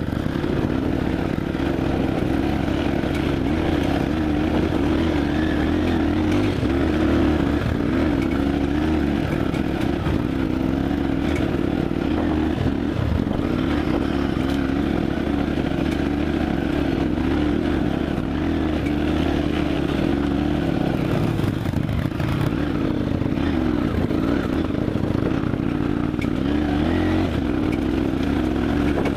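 Dirt bike engine running at a fairly even throttle while the bike is ridden along a trail, heard up close from on board the bike.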